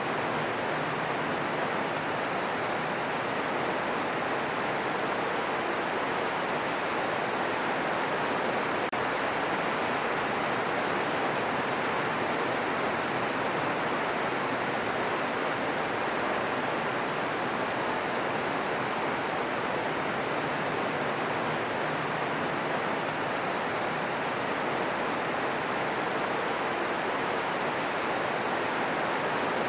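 Steady green noise: an even, unchanging synthetic hiss centred on the middle frequencies, used as a sleep and relaxation sound.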